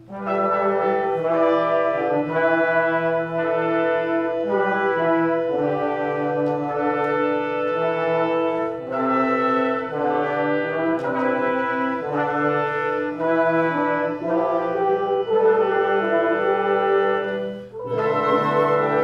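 A live orchestra playing, with the brass section prominent in sustained chords that change about every second. There is a short break near the end before the brass comes back in.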